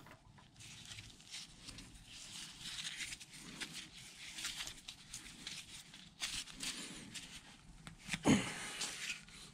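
Faint handling noise as nitrile-gloved hands screw the handle onto a Bridgeport mill's saddle lock: rustling and small metal clicks, with a louder thump a little after eight seconds in.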